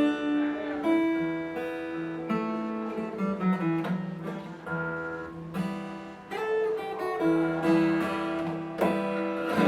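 Steel-string acoustic guitar, a copy of a Taylor 314ce, played fingerstyle: a picked melody over moving bass notes, with several sharp strummed or slapped chords, the last near the end.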